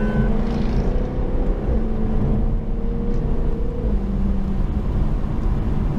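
Jaguar F-Type R's supercharged 5-litre V8 running at a steady cruise under a dense low road rumble, heard inside the cabin; the engine note drops a little about four seconds in.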